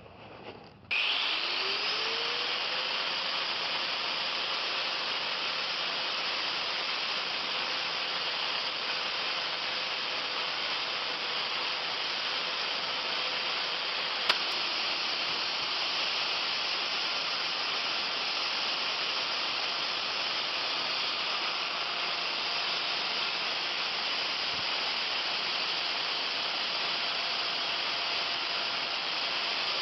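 A power tool switches on about a second in, its motor pitch rising and then settling. It runs steadily with a continuous abrasive rubbing hiss, as in sanding or grinding work on the hammer. One sharp tick comes about halfway through.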